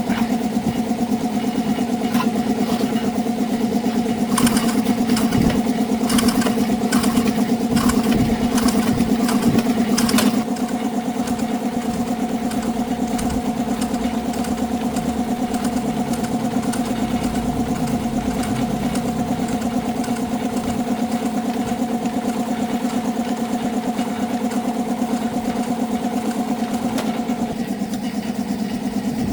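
Small motorbike engine idling steadily, with a run of sharp clicks from about four to ten seconds in.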